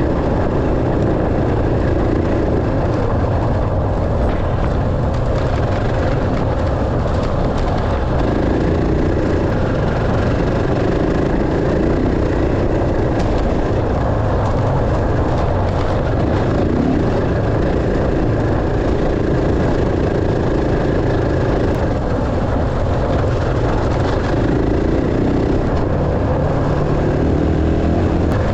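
Dirt bike engine running hard and continuously during enduro riding, its revs shifting up and down.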